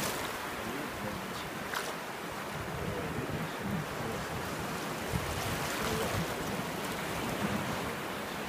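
Shallow surf washing in and out over sand, a steady wash of small waves with no breaks.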